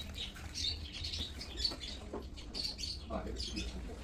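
Many short, high-pitched chirps in quick succession, like small birds twittering, over a low steady hum.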